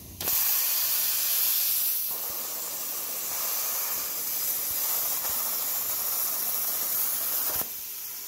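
Plasma cutter torch on a CNC table cutting sheet steel: a loud, steady hiss of the arc and air jet that starts suddenly and cuts off sharply near the end.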